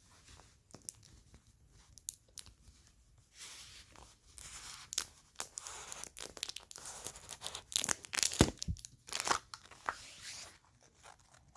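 Plastic packaging being torn open and crinkled by hand, starting with a few small clicks and handling sounds, then from about three seconds in a run of crackly tearing and crumpling bursts that stop shortly before the end.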